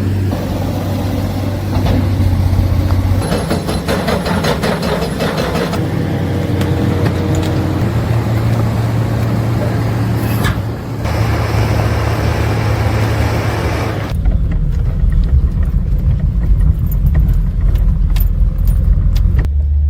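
Heavy diesel construction machinery running under load, a steady low engine drone with metal clanking and rattling. The sound changes abruptly several times, and after about fourteen seconds it turns into a deeper rumble with occasional clicks.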